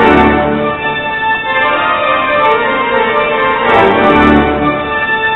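Organ playing loud, sustained chords.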